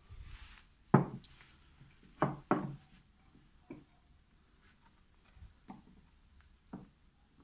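Ceramic mugs knocking as they are handled and set down on a wooden tabletop. There are several separate knocks: the loudest about a second in, two close together a little after two seconds, and softer ones later.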